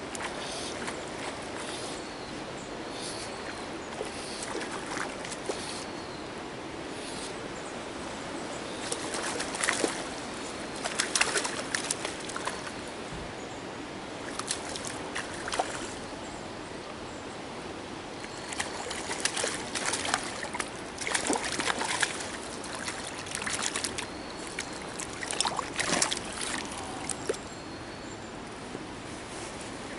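A hooked trout splashing at the water's surface in irregular bursts while it is played and drawn into a landing net, over a steady trickle of flowing water.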